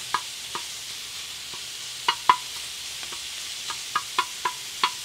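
Chopped bacon sizzling on the steel disc of a FIREDISC propane cooker, a steady hiss, while metal tongs stir it and knock and scrape against the disc in irregular sharp clicks, two loud ones about two seconds in and several more near the end.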